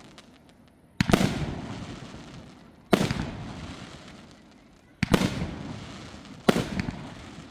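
Fireworks bursting overhead: four sharp bangs about one and a half to two seconds apart, each trailing off over a second or two.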